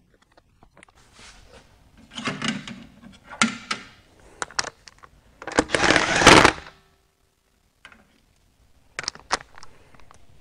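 Wheel bolts being fitted to a front wheel: scattered metal clicks and clanks as the bolts are handled and threaded in, then a cordless power tool runs for just over a second a little past halfway, spinning a bolt in.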